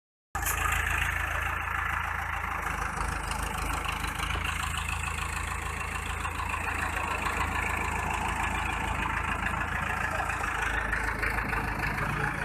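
Diesel engine of an Escorts Hydra 14 mobile crane running steadily with a deep hum, under load as the crane lifts an overturned dump truck.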